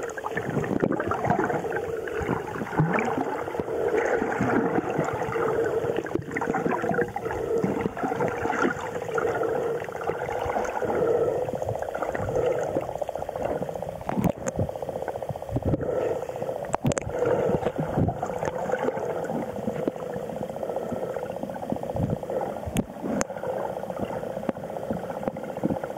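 Underwater sound picked up by a submerged camera: a muffled, steady drone with gurgling water, and a few sharp clicks and knocks in the second half.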